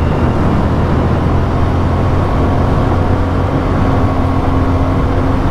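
CFMOTO 450MT's parallel-twin engine running steadily as the bike is ridden along a dirt road, mixed with broad road and wind noise.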